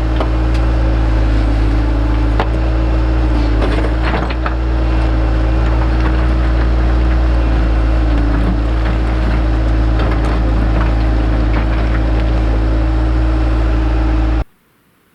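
Heavy digging machine's engine running steadily, with scattered sharp knocks of rock. It cuts off suddenly near the end.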